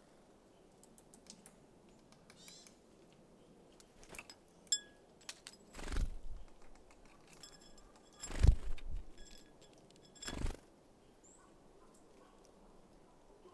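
Small birds at a feeder: scattered light taps and clicks, then three brief louder flutters about two seconds apart, the middle one loudest, with a few short high calls between them.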